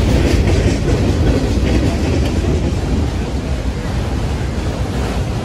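Freight cars rolling past at close range: a steady rumble and rattle of steel wheels on the rails, with some clicking of wheels over the rail joints.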